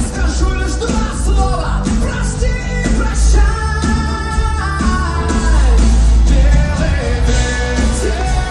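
Live rock song: a singing voice over a full band, with a heavy, steady bass.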